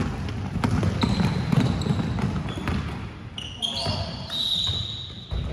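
Basketball bouncing on a gym floor, a run of sharp thumps, with voices in the hall and high squeaks over the second half.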